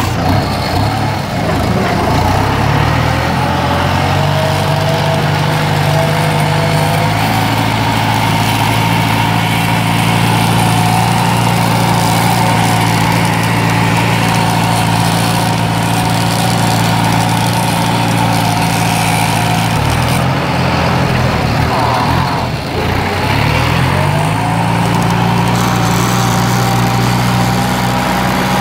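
Small DC electric motor of a model tractor running steadily with a motor hum and whine. Its pitch sags about twenty seconds in and climbs back a few seconds later.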